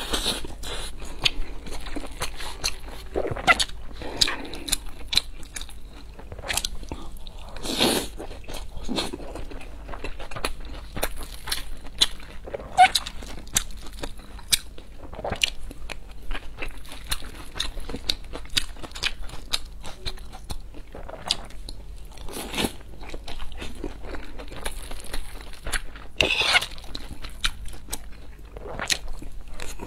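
Close-miked chewing of mouthfuls of fried rice with diced vegetables: a steady run of small crunches and wet mouth clicks, with a few louder bites.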